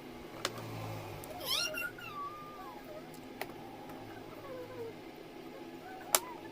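A cat meowing, one call rising and falling followed by fainter drawn-out calls, with a few sharp clicks, the loudest near the end.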